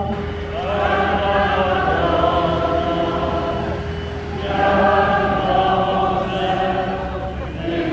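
A group of voices singing a slow hymn in two long phrases, with a steady held note beneath the first phrase.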